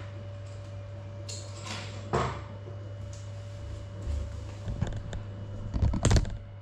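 Steady low hum from the grounded FPV drone's onboard camera, with a brief swish about two seconds in. Scattered knocks and clatter follow from about four seconds in, loudest near six seconds, as the crashed drone is handled and moved.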